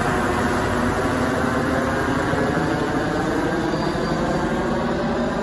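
Helicopter flying overhead: a steady, loud rotor and engine noise that holds even throughout.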